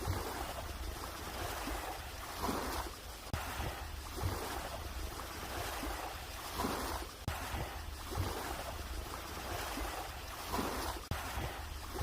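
Small waves washing in at the water's edge, the surf swelling up and falling back every few seconds, with wind rumbling on the microphone.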